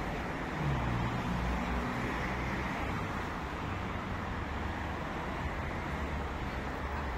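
Steady road traffic noise from cars driving along a wide multi-lane street: a continuous rumble of engines and tyres with no single vehicle standing out.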